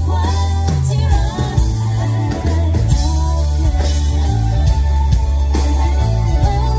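Live band performing a pop-rock song: a woman singing over acoustic guitar, electric bass and drums, loud through the stage PA.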